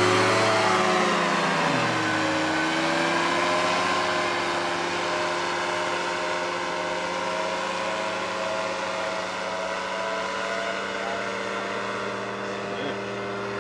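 Powered parachute's engine and caged pusher propeller passing close overhead. The pitch drops about a second in, then the drone holds steady and slowly grows fainter as the craft flies away.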